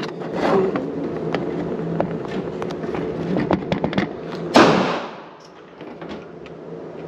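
A single gunshot with a short echoing tail about two-thirds of the way through, amid light clicks and knocks of a pistol being handled at the shooting bench.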